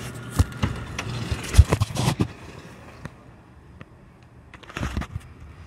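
Handling noise from a phone: fingers knocking and rubbing on its microphone as it is gripped and moved. There is a flurry of knocks over the first two seconds and a shorter one near the end.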